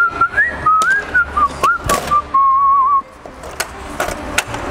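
A whistled tune: one clear tone wandering up and down for about three seconds, with sharp knocks and clicks scattered through it.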